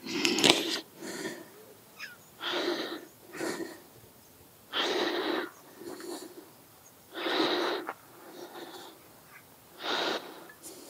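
Brake caliper slider pin being pushed in and pulled out of its greased rubber boot, air wheezing out of and back into the boot with each stroke. Short hissing bursts in a steady rhythm, longer and shorter ones in turn, about one every second or so.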